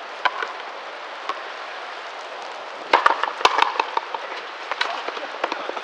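Frontenis rally: sharp cracks of the ball struck by rackets and smacking off the frontón wall and floor, single hits spaced apart and a quick cluster of impacts about three seconds in.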